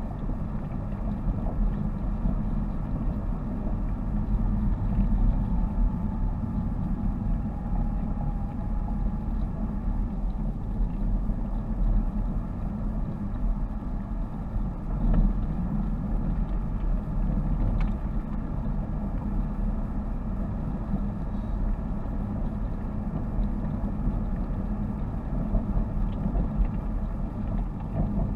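Car driving at an even pace, heard from inside the cabin: a steady low rumble of engine and tyres on the road, with a few faint ticks.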